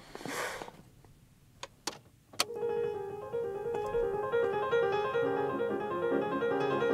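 A brief rustle and a few sharp clicks. Then, about two and a half seconds in, background music enters with a light melody of short, quick notes.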